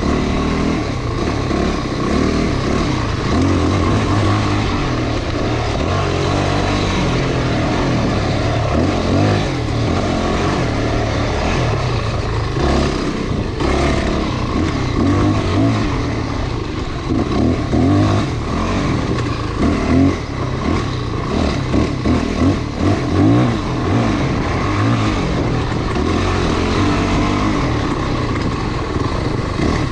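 Off-road motorcycle engine running under way, revving up and down with the throttle, with level swings in the second half.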